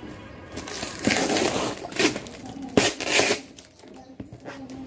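Cardboard carton being opened by hand: rustling and scraping at its packing tape, with a few sharp knocks against the box.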